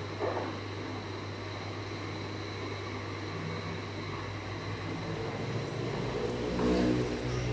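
A steady low hum, joined from about three seconds in by an engine-like drone that grows louder and is loudest near the end. There is a brief knock just after the start.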